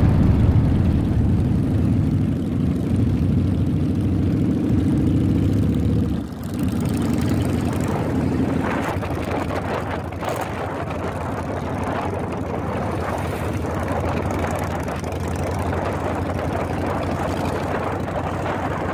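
Steady low drone of a vehicle's engine running, with a change in the sound about six seconds in.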